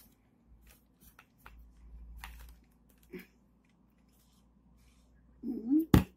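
Faint clicks as a glass of iced kvass is handled, then a short hum from a voice and the glass set down on the table with a single sharp knock near the end.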